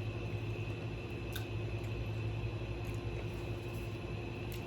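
Steady low electrical hum with a few faint clicks from chewing on chicken wing bones.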